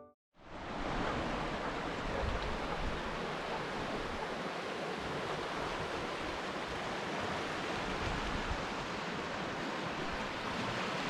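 Steady wash of sea waves on the shore.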